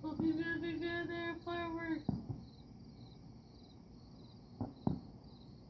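Crickets chirping steadily, a faint even pulse of high chirps. For the first two seconds a louder steady pitched tone sounds over them and breaks off once. A few sharp pops follow later.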